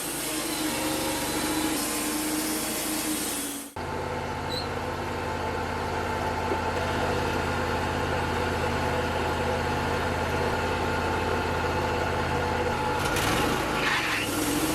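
Wood-Mizer LT35 portable sawmill running steadily, its engine giving an even hum, with a sudden break about four seconds in and a change in the sound near the end.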